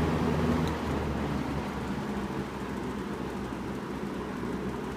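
Sears (Lasko) model 8121 20-inch box fan running on medium speed: a steady rush of air over an electric motor hum and whine. The level eases down slightly about a second in as the fan settles to the medium setting, then holds steady.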